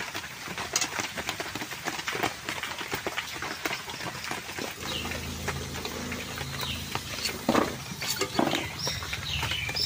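Biscuits deep-frying in a steel wok of hot oil, crackling with many small pops, with a metal spatula clinking and scraping against the wok. A low steady hum comes in about halfway.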